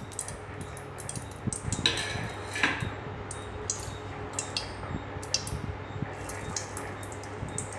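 Oil heating in an aluminium kadai, crackling with scattered small pops over a steady low hum, with a couple of louder ticks about two seconds in. Near the end mustard seeds are dropped into the hot oil for tempering.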